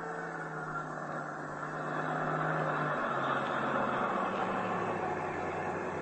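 Radio-drama scene transition: a steady rushing noise effect that swells about two seconds in, under low held music notes that step down in pitch twice, about three and four seconds in.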